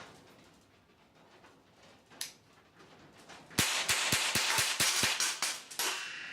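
Marushin Combat Commander HW cap-firing model gun, a kit build, firing a rapid string of about eight sharp cap shots in just over two seconds, cycling smoothly without a jam. A single click comes before the string, and a brief metallic ringing follows the last shot.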